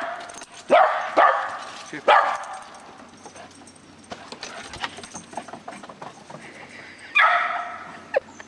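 Small dog barking excitedly in short, sharp yaps while jumping up at a hand during play: several quick barks in the first two seconds, then another near the end.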